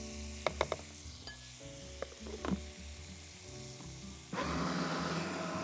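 Sharp plastic clicks as a food processor bowl and lid are handled, over a faint sizzle of chicken on a grill pan. About four seconds in, the food processor motor starts and runs steadily, pulsing cooked chickpeas toward a coarse purée.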